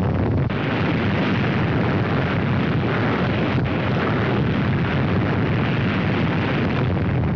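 Deep, continuous rumble of a nuclear explosion, a dense steady noise with no break or separate blasts.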